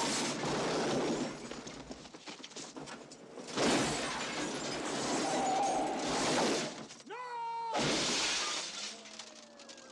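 Film car-crash sound effects: loud bursts of vehicle crashing and skidding noise, then a short held pitched sound and a burst of glass shattering about eight seconds in, as a surfboard smashes through a tow truck's windshield.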